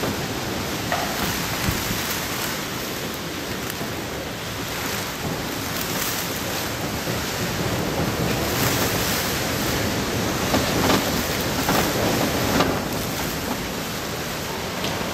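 Typhoon eyewall wind roaring steadily through palm trees in driving rain, with stronger gusts swelling about two-thirds of the way through.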